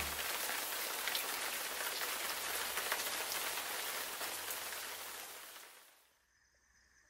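Steady rain falling, a hiss dotted with individual drops ticking, that fades away about six seconds in.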